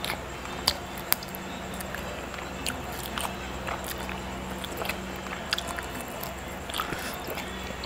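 Close-up mouth sounds of someone biting and chewing meat off a grilled marinated goat rib bone: irregular wet smacks and clicks. A steady low hum runs underneath.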